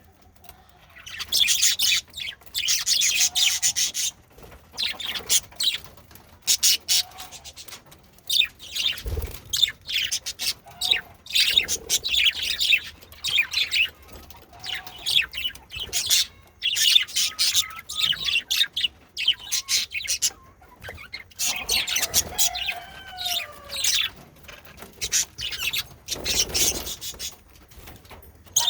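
Male budgerigars chirping and warbling in quick bursts of chatter, with short pauses between the bursts.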